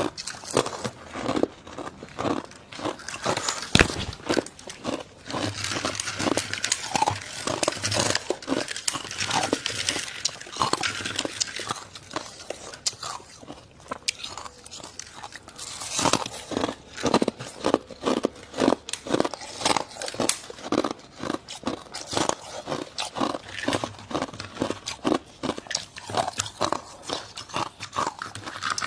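Close-up biting and chewing of dry, squeaky deep-freezer frost: a steady run of crisp crunches, a few a second.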